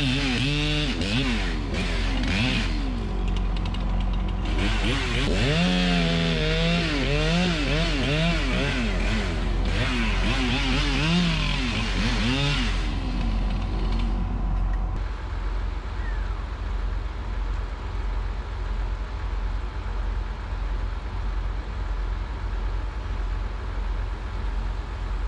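Chainsaw cutting into the base of a tree, its engine pitch rising and falling as it revs, for about the first half; it then stops. A steady low engine rumble runs underneath throughout.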